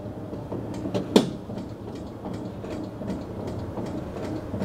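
1960 Chevrolet Impala's two-speed electric windshield wiper motor running, the wipers sweeping across the glass while the washer pump on the motor spritzes water a little at a time, with light mechanical clicking and one sharp knock about a second in.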